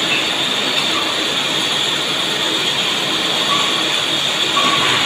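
Steady din of running machine-shop machinery, with a constant high-pitched whine above it.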